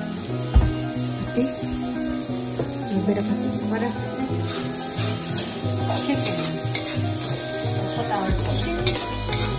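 Sliced onions and ginger sizzling in an aluminium wok, with a wooden spatula stirring and scraping against the pan in scattered clicks, over background music.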